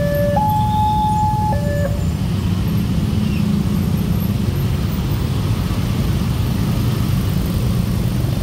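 Electronic warning alarm of a railway level-crossing signal, alternating a high and a low tone about a second each, cutting off about two seconds in as the crossing signal ends. Under it a steady low rumble of idling motorcycle traffic waiting at the crossing.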